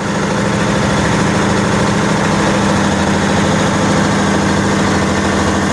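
A bangka (outrigger fishing boat) engine running steadily while the boat is underway: a loud, constant drone with rapid, even firing pulses.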